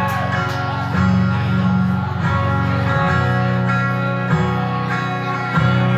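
Live rock band playing an instrumental passage with no singing: amplified electric guitars hold chords that change every second or so.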